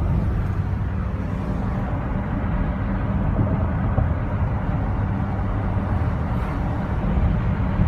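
Car driving at a steady pace: a constant low rumble of engine and road noise inside the cabin.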